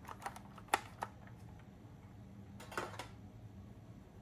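Plastic clicks and knocks from handling a Tyco R/C Harley-Davidson transmitter: a few sharp clicks in the first second, the loudest just under a second in, and a short clatter near three seconds in. A low steady hum runs underneath.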